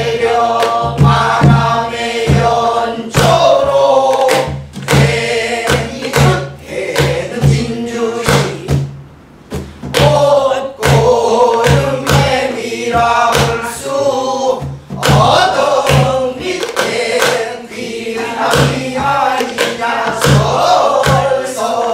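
A group of men and women singing a Namdo folk song together in unison, with strokes on a buk barrel drum keeping the beat. The singing breaks off briefly about nine seconds in.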